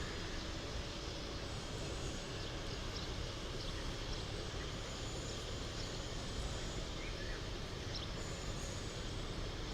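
Steady outdoor background noise with a low rumble, with a few faint short chirps above it.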